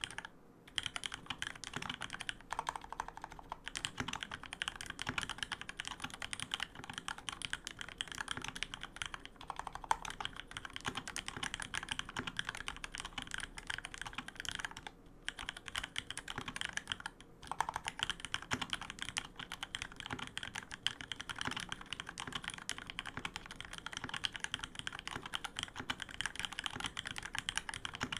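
Steady, fast typing on a custom 65% keyboard with a white acrylic case and integrated plate, vintage Cherry MX Black linear switches lubed with Krytox, and PBT keycaps. It makes a dense run of keystroke clacks, broken by two brief pauses a little past halfway.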